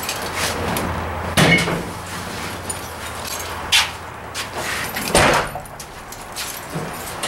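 A few separate clunks from a BMW E30 as the hood release is worked from the driver's footwell, then the driver's door shutting with a thump about five seconds in, the loudest knock.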